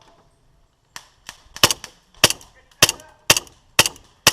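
Airsoft guns firing single shots in quick succession, eight sharp cracks about two a second, starting about a second in.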